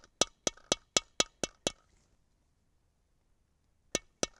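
Hammer tapping on a Lee Loader's bullet-seating plug, driving a 7.62x54R bullet deeper into its case: a quick run of about eight sharp knocks, about four a second, then a pause, then the tapping starts again near the end.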